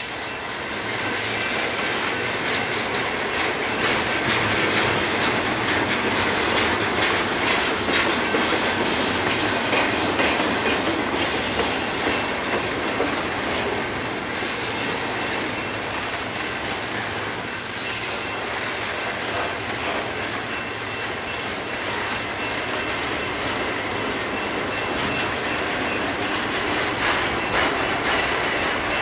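Double-stack intermodal freight train's steel wheels rolling past on the rails, a steady rumble and clatter of passing well cars. High-pitched wheel squeal breaks in several times, loudest a little past halfway through.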